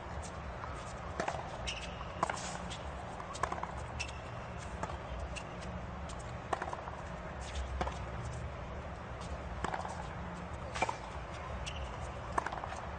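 Tennis rally on a hard court: crisp racket strikes and ball bounces trade back and forth about once a second, with a few short high shoe squeaks, over a low steady stadium murmur.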